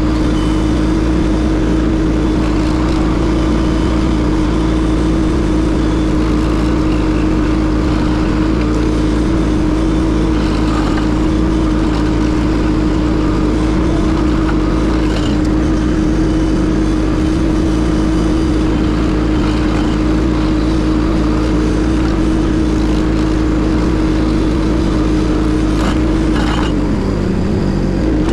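Case TL100 mini skid steer running steadily at high engine speed, powering a hydraulic stump grinder attachment. There is a continuous drone with a strong steady hum, and the pitch wavers briefly near the end.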